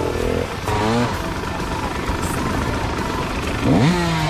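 Dirt bike engines running, with a short rev about a second in and a sharp rev rising in pitch near the end, as a bike stuck among logs is throttled up.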